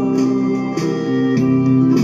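Instrumental backing music of a song: sustained chords with a light beat, and no singing.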